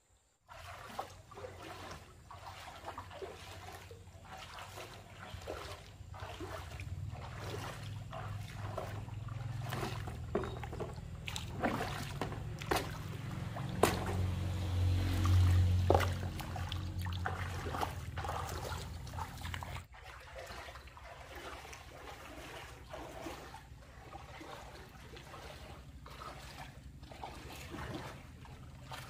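Water splashing and trickling, with many scattered knocks and clicks over a low rumble that swells about halfway through and drops off sharply later on.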